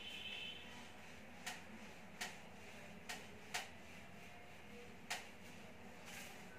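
Whiteboard duster erasing a whiteboard: a short squeak at the start, then five sharp knocks against the board spread over the next few seconds.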